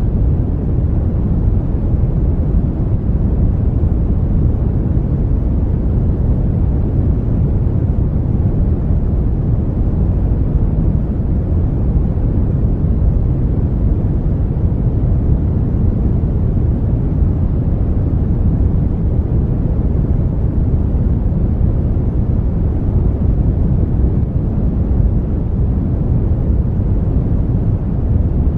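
Brown noise: a steady, even rushing hiss, deep and bass-heavy with little treble, unchanging throughout.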